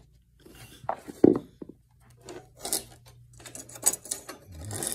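Handling noise from a guitar amp speaker baffle board with grille cloth being lifted and tipped up off a plywood floor: scattered clicks, taps and scrapes. The loudest is a sharp knock about a second in, and a rustling scrape swells near the end.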